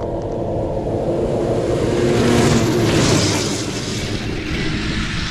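A 600cc racing snowmobile speeding past close by. Its engine swells to a peak about three seconds in, then fades away.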